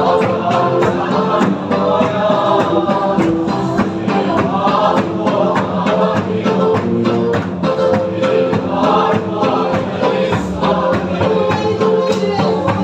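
A group of voices singing a worship song together to a steady percussion beat.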